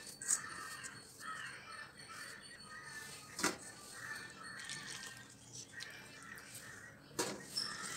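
Hands mixing flour and water in a steel bowl, with two sharp knocks, one about three and a half seconds in and another near the end. Birds call repeatedly in the background.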